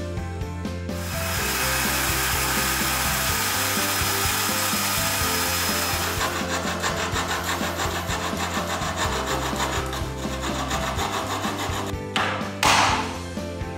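A band saw cutting through a pine board in an even, continuous rasp. It gives way at about six seconds to the back-and-forth strokes of a hand frame saw cutting wood. Near the end there is a short, loud rush of noise.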